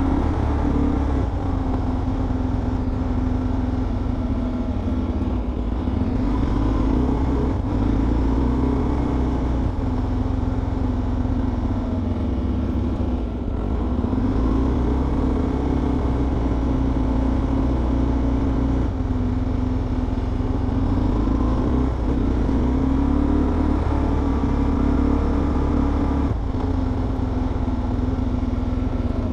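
Motorcycle engine running at a steady cruise, its note drifting gently up and down, over a continuous low rumble.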